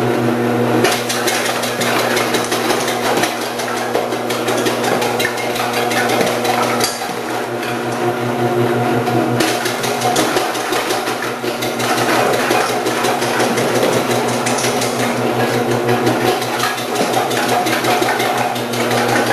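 Omcan HLC 300 continuous-feed vegetable slicer running: a steady motor hum under a rapid clatter as its 8 mm slicing disc cuts carrots. The clatter thins out for a couple of seconds partway through, then picks up again.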